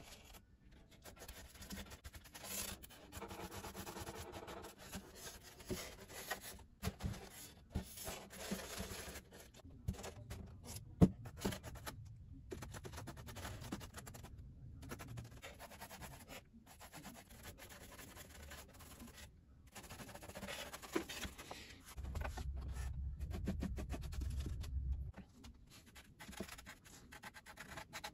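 Paintbrush scrubbing thinned filler into carved polystyrene brickwork: a faint, irregular scratching and rubbing of bristles. A single sharp knock comes about eleven seconds in, and a low rumble lasts a few seconds later on.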